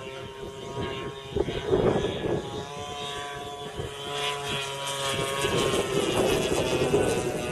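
Gasoline engine of a radio-controlled model airplane running in flight, a steady propeller drone that grows louder in the second half as the plane comes closer. Wind gusts buffet the microphone underneath.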